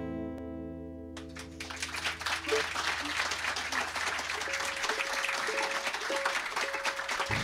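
The final acoustic guitar chord of a live song rings out and fades, and about a second in an audience breaks into applause that continues.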